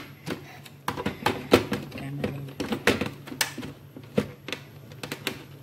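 Irregular plastic clicks and knocks from a countertop blender's jar and lid being handled and fitted, with the motor not running.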